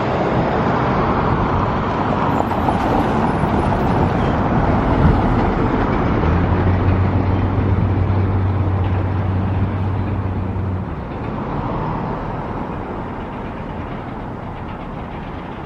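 Road vehicle noise: a steady rushing of passing traffic, with a low engine hum that holds for about four seconds midway and then drops away.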